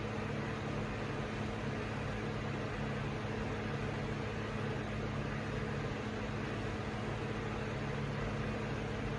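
Hampton Bay Tripoli ceiling fan running steadily: an even motor hum with air noise.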